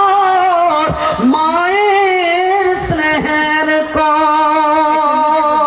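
A man's voice singing a devotional song in long, drawn-out notes with a wavering pitch; the last note is held steady for the final two and a half seconds or so.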